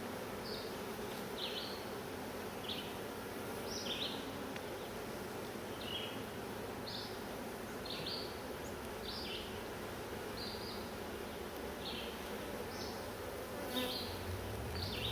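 Honeybees buzzing steadily around an open hive during a frame inspection. A short high chirp repeats about once a second over the hum.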